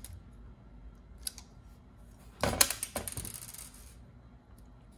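Small metal and plastic toothbrush parts clicking as they are handled, then a clatter of steel adjustable pliers set down on a hard case about two and a half seconds in.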